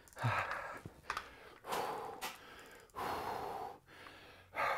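A man breathing hard after heavy lifting, taking deep, audible breaths about once every second and a half as he catches his breath.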